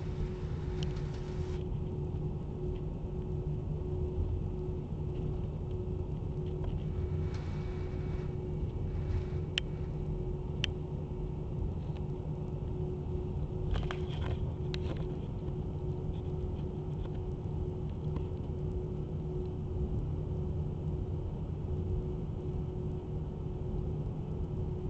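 Airbus A320 cabin noise while taxiing: a steady low rumble from the engines and undercarriage with a constant hum over it. A few faint clicks come about halfway through.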